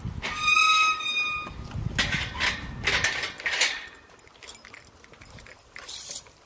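A metal kennel gate squeaking open with a high, steady squeal of about a second, followed by clanks and rattles of the wire gate and of puppies' paws on perforated metal grating. Only faint taps in the last couple of seconds.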